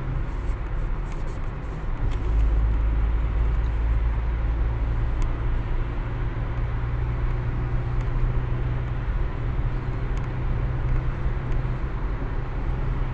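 Steady drone of a car driving at highway speed, heard from inside the cabin: a low engine and tyre rumble under an even hiss of road noise. The low rumble grows heavier about two seconds in.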